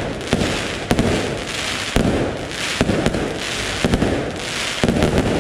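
Aerial firework shells bursting overhead about once a second, each a sharp bang followed by a rumbling, crackling tail.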